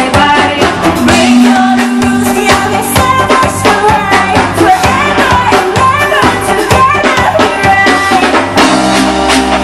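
Pop song played live through a stage sound system: a woman singing over a drum-kit beat.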